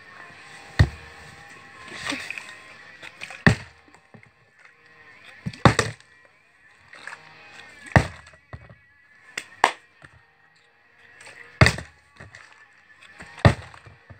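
A plastic Sprite bottle being flipped and hitting a sheet of cardboard laid over carpet, a sharp thud every two seconds or so, seven times in all.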